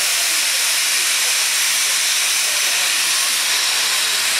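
Class 41 steam locomotive 41 096 venting steam: a loud, steady hiss without any exhaust beat.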